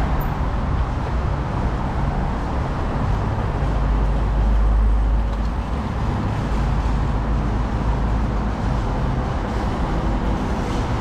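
Steady low rumble of passing vehicles over a continuous city hum, swelling for a moment about four seconds in.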